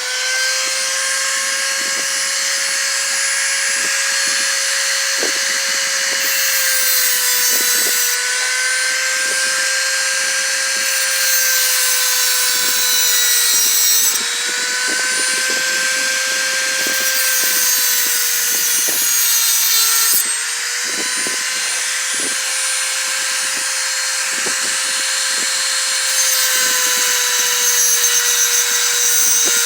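Small high-speed rotary tool with a heavy-duty cut-off wheel cutting through a metal pick blank: a steady high whine with a harsh grinding hiss that swells and fades as the wheel bites, the pitch sagging slightly under load every few seconds.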